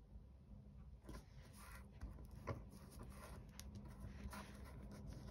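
Faint rustling and light taps of paper being handled and pressed flat by hand onto a card, with one sharper tap about two and a half seconds in, over a low steady hum.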